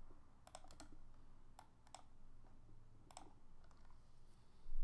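Scattered faint clicks of a computer keyboard and mouse, some in quick pairs, over a low steady hum.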